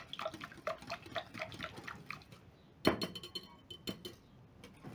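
Wire whisk beating egg into milk in a glass bowl: a quick run of light ticks as the whisk hits the glass through the liquid. About three seconds in comes one sharper, ringing clink of glass, followed by a few lighter clinks.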